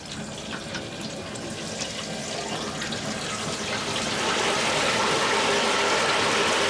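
Hot oil in a turkey-fryer stockpot sizzling and bubbling as a whole turkey is lowered in. The sizzle grows louder over the first few seconds and then holds steady.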